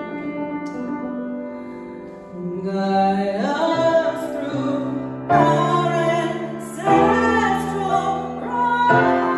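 A woman singing with grand piano. Sustained piano notes give way to her voice about two and a half seconds in, a slow melody that slides between held notes. Fresh piano chords are struck about halfway through, again a second and a half later, and near the end.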